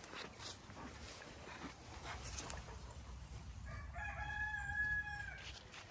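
A rooster crowing once: one drawn-out crow of about a second and a half, about two thirds of the way in.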